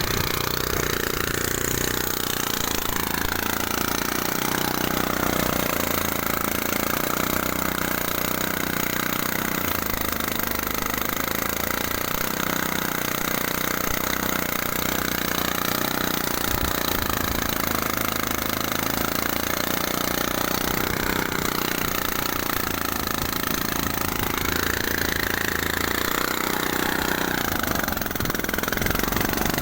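Engine-driven rice threshing machine running steadily, its pitch wavering slightly up and down a few times.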